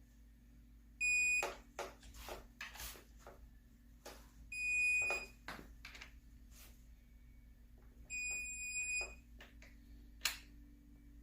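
Digital torque wrench beeping as a camshaft bolt reaches its 30 ft-lb target: three high steady beeps, about a second in, near the middle, and about eight seconds in, the last held longest. Faint clicks and knocks come between the beeps.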